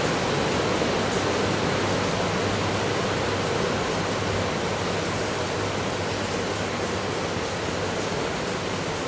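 Steady, even rushing noise like hiss or running water, with no distinct events, easing off very slightly toward the end.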